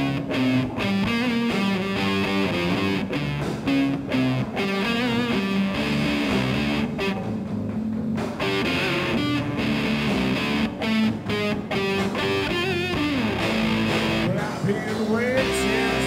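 A band playing a song, guitar prominent.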